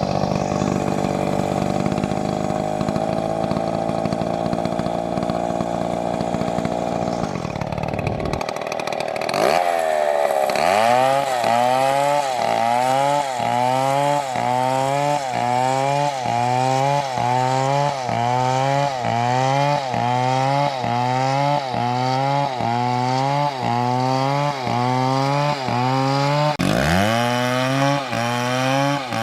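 Chainsaw engine running at high speed with a steady high pitch. After a short break, the engine speed rises and falls in a regular cycle, a little over once a second.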